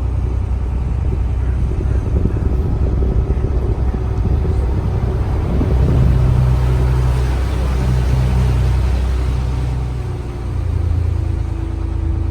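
Tour boat's engine running under way, a steady low rumble that shifts in pitch and level about ten seconds in.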